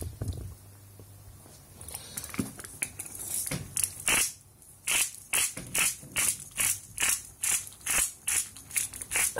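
Hand-twisted salt mill grinding coarse salt, a crunching grind about twice a second from about halfway in, after a few irregular clicks and rustles as it is picked up.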